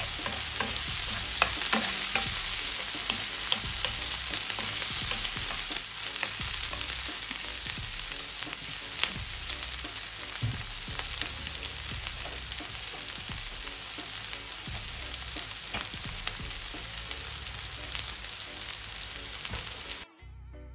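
Chopped onion and pepper sizzling in hot olive oil in a frying pan, with a steady hiss and scattered crackles and pops, stirred with a wooden spoon at the start. The sizzle cuts off suddenly near the end.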